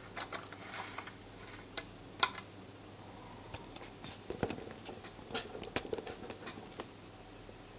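Light handling noises: scattered soft clicks, taps and rubs as the foam-board linear clock's hand carriage is pushed back along its rail to the start.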